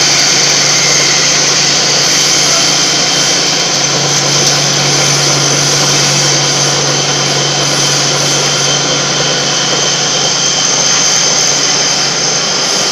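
Stainless-steel colloid mill (nut butter grinding machine) running steadily under its electric motor while grinding, giving a loud, even whine with a low hum that grows a little stronger about four seconds in.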